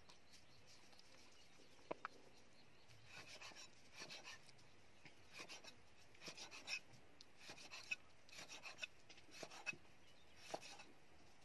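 Knife slicing raw pork belly on a wooden chopping block: faint, irregular cutting and scraping, with a few sharper taps of the blade on the wood.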